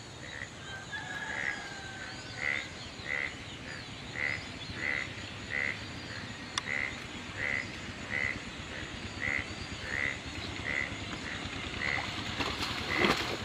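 A frog croaking in a flooded paddy field: one short call repeated evenly about one and a half times a second. Near the end, water splashing as a bucket is tipped into the water.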